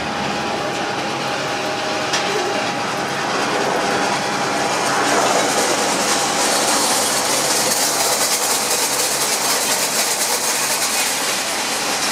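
Twin-turboprop airliner on its landing roll: steady engine and propeller noise with a high hiss, growing louder with a fine rapid buzz about six seconds in.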